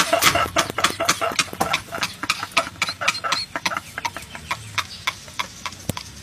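Men laughing hard, a fast string of short cackling bursts that thins out and grows quieter in the second half.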